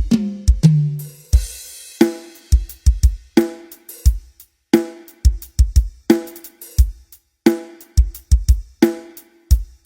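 Drum-kit sound-test track: deep kick-drum thumps in quick groups alternating with ringing pitched drum hits, separated by short gaps, with a cymbal wash about a second in. Material for demonstrating the mid and low range of a speaker system.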